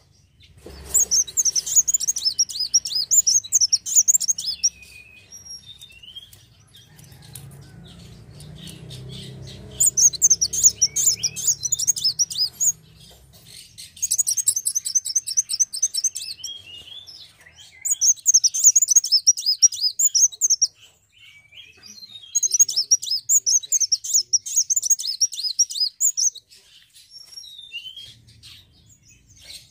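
A sunbird singing: five bursts of fast, high twittering trills a few seconds apart, with short downslurred notes between them.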